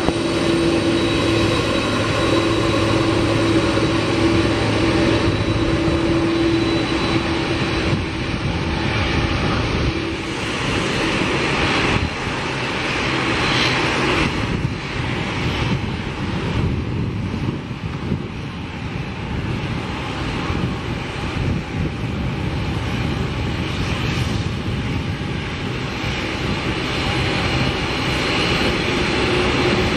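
Boeing 747-400's four jet engines running at low taxi power, a steady whine and rumble as the jet taxis onto the runway and lines up. A droning tone fades about seven seconds in and comes back near the end.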